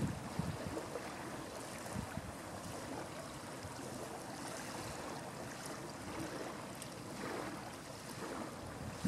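Wind blowing across the camera microphone: a steady rush with a few low buffeting gusts.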